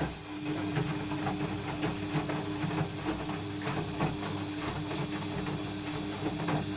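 Washing machine drum turning in a wash cycle with a steady hum and an irregular scraping, grinding noise, which the owner takes for metal rubbing on metal.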